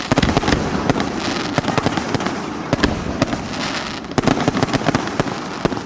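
Display fireworks going off in a dense barrage: many sharp bangs and crackles in quick succession, several a second, over a continuous hiss and rumble. The bursts come thickest in clusters about a second and a half apart.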